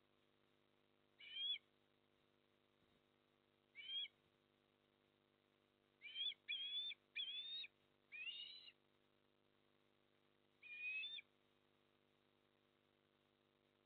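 Eastern osprey giving short, rising whistled calls, seven in all, in irregular groups, with one slightly longer call in the middle. A faint steady hum lies underneath.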